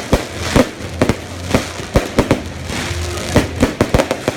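Fireworks display going off: about a dozen sharp bangs at irregular spacing, several a second at times.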